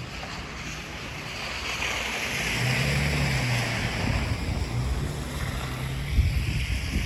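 A vehicle passing on a snowy, slushy street: tyre hiss swells up over a couple of seconds and fades away, with a low engine hum under it, and wind buffeting the microphone throughout.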